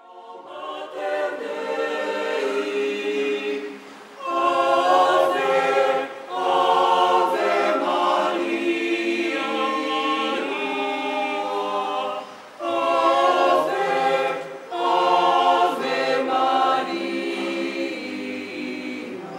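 A choir singing unaccompanied, in phrases with brief pauses between them; it fades in at the start.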